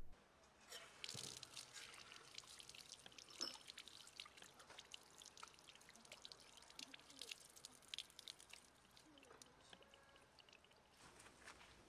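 Faint splashing of water running from an outdoor tap onto cupped hands and a stone below, a dense patter of drops as hands are washed.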